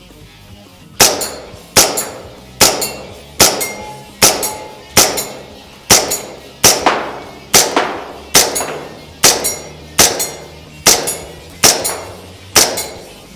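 Tokyo Marui Detonics .45 gas blowback airsoft pistol on green gas firing about sixteen evenly paced shots, a little over one a second. Each shot is a sharp crack with a short ringing clang, as BBs strike metal plinking targets. The shooter calls the cycling rather sluggish in the cold, though still snappy.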